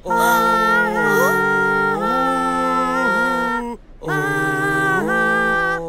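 A cartoon character singing long, held notes without words, several pitches sounding together, with a short break about two-thirds of the way through.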